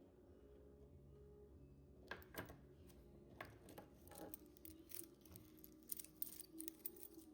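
Faint handling noises: a scatter of small clicks and rustles starting about two seconds in, most frequent near the end, from hands handling a wristwatch and its packaging.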